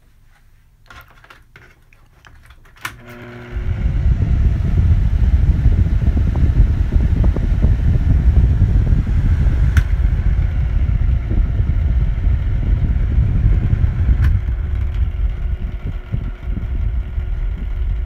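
Vornado 573 box fan starting with a click about three seconds in, then running with a loud, dense low rumble. It sounds terrible, the sign of dry, worn motor bearings that need oil.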